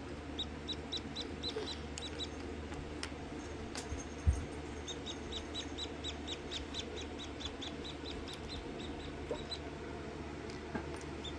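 Newly hatched Rhode Island Red chick peeping: short, high peeps about four a second in two long runs, the call of a lone incubator-hatched chick looking for a mother hen. A single dull bump about four seconds in is the loudest sound, over a steady low hum.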